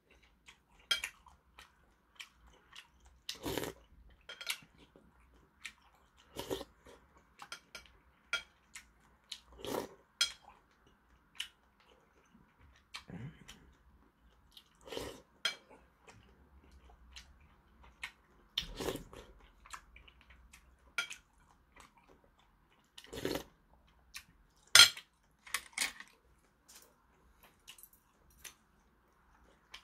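Eating sounds: a metal spoon clinking and scraping against a porcelain bowl of dumpling soup, with spoonfuls sipped and chewed, in short separate sounds every few seconds. One sharper clink stands out near the end.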